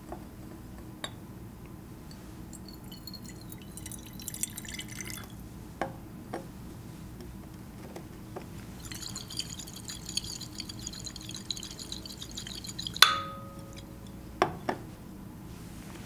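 Lime water poured into a glass Erlenmeyer flask, its pitch rising as the flask fills. The stoppered flask is then shaken so the liquid sloshes against the glass, mixing the lime water with the candle's combustion gas. At about thirteen seconds the flask is set down with a sharp, ringing glass clink, and a smaller knock follows.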